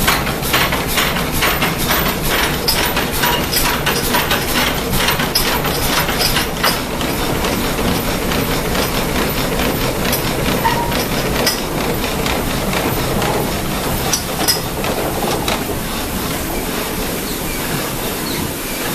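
Water-powered sawmill's up-and-down saw running, a fast rhythmic clatter over the rush of water. The clatter fades after about seven seconds, leaving a steady rushing noise.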